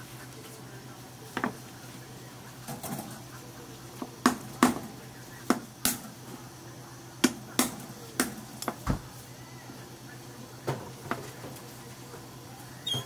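Kitchen work: about a dozen irregular sharp knocks and clacks of hard tools on a hard surface, over a steady low hum.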